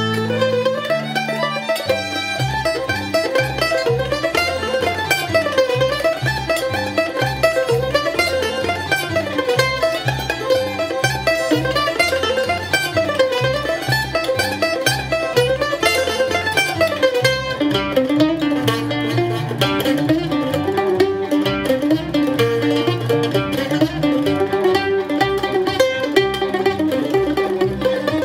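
Mandolin picking a fast melody of running notes that rise and fall in arcs, with a lower second line joining a little past halfway. A steady plucked bass line sounds underneath, too low for the mandolin.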